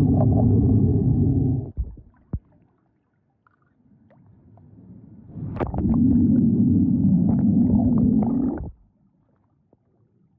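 Muffled churning and gurgling of water heard through a submerged camera, with a few sharp clicks. It comes in two stretches of about two and three seconds with a near-quiet gap between, then falls almost silent near the end.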